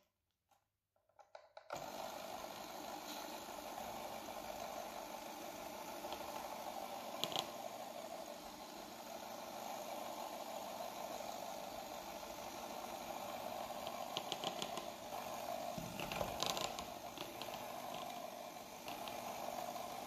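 Electric hand mixer switched on about two seconds in, running steadily at its lowest speed as its beaters whisk a thick cream in a plastic bowl. A few sharp ticks around the middle and near the end.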